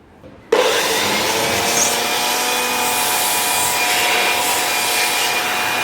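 A small electric motor with a fan switches on about half a second in and runs steadily, with a hiss of moving air and a high whine.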